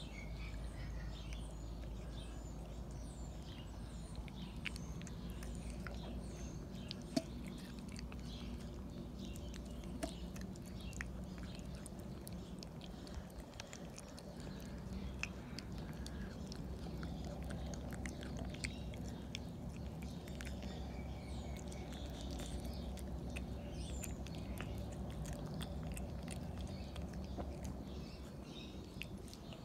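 A cat chewing and eating meat chunks from a metal bowl, with many small irregular clicks and smacks and a few sharper clicks.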